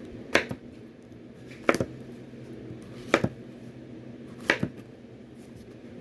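Kitchen knife chopping vegetables on a cutting board: four sharp knocks about a second and a half apart, each followed closely by a lighter tap, over a low steady hum.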